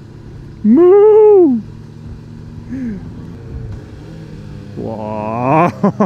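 Motorcycle running steadily along a rough mountain road, with a loud, brief tone about a second in that rises and then falls in pitch.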